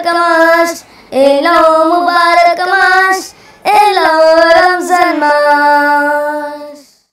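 A boy's voice singing a Bengali Islamic gojol in three phrases with short breaks between them; the last note is held and fades out near the end.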